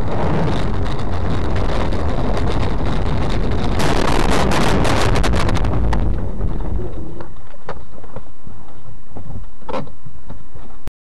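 Loud, steady rumble of a moving vehicle with wind buffeting the camera microphone, with a flurry of knocks and clicks about four to six seconds in.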